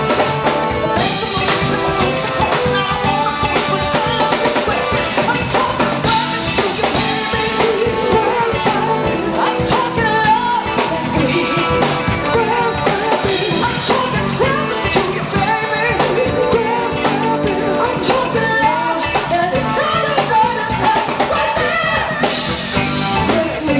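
Live band music with a drum kit, guitar and singing, playing loudly and steadily.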